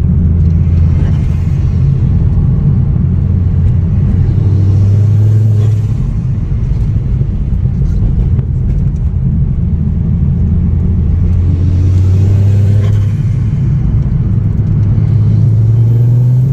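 Ford Focus ST225 on the move: a steady low engine and road drone whose pitch rises slightly a few times as the car picks up speed.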